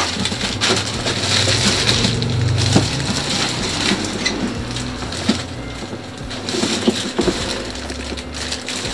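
Clear plastic bag crinkling and rustling with a steady stream of crackles as it is handled and lifted.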